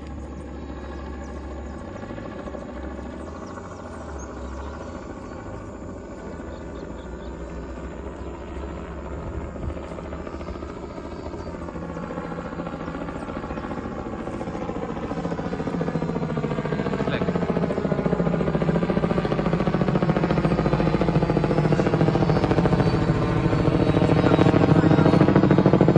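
Helicopter approaching, its rotor beat growing steadily louder through the second half, with the pitch of its drone sliding as it comes in.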